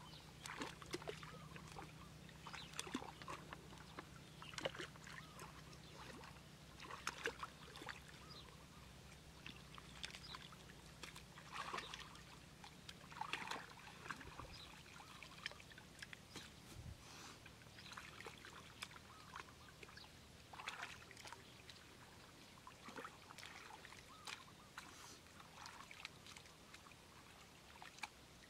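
Faint, irregular splashing and sloshing of shallow muddy water, stirred by wading feet and hands groping under the surface.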